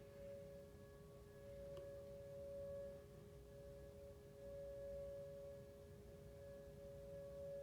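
Distant outdoor tornado warning siren sounding a steady two-note chord, heard faintly, swelling and fading in loudness every two to three seconds.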